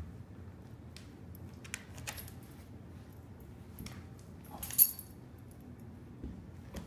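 Scattered light clicks and rustles of a Boston terrier and a kitten scuffling on a tile floor, with the metal tag on the dog's collar jingling. One sharp metallic clink just before five seconds in is the loudest sound.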